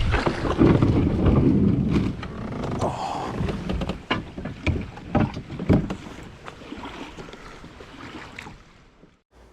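Wind buffeting the microphone and water slapping against a kayak hull, with scattered sharp knocks. Loudest in the first two seconds, then fading away toward the end.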